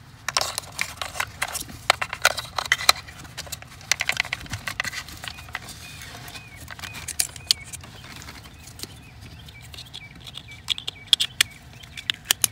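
Plastic wiring-harness connectors being handled and plugged together at the accelerator pedal, with irregular clicks and rattles that come in clusters.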